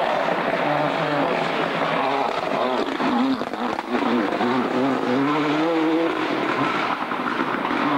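Ford Escort RS Cosworth Group A rally car's turbocharged four-cylinder engine driven hard, its note rising and falling with gear changes and lifts off the throttle; a climb in pitch about halfway through breaks off near six seconds.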